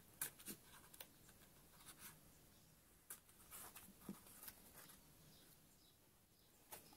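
Near silence with faint, scattered scratches and light clicks of a painted cardboard rainbow being handled as a black braided cord is pushed through its end.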